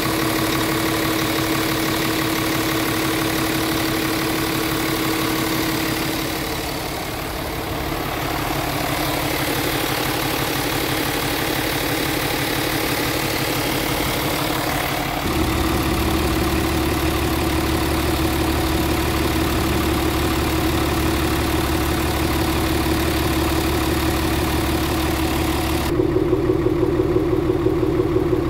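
Scania R 450 truck's 13-litre inline-six diesel idling steadily. Its tone changes abruptly about halfway through and again near the end.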